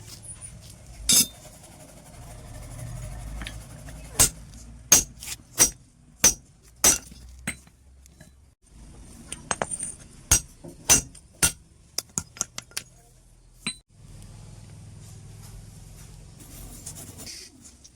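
Sharp metallic clinks and taps, about fifteen at irregular spacing, with the thickest run between about four and seven seconds and again around ten to twelve seconds, over a faint low hum: small metal parts and tools striking metal.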